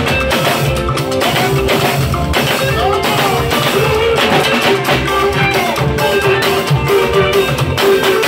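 Music with guitar and drums over a steady beat.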